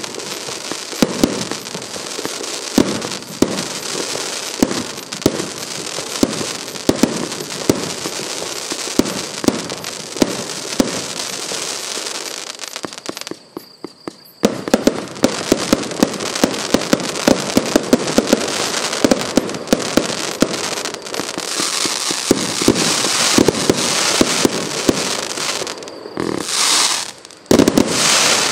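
Boneshaker 1.3G firework cake firing a continuous barrage: repeated launch thumps and crackling bursts. It breaks off for about a second just past halfway, then resumes faster and louder, with heavy bursts near the end.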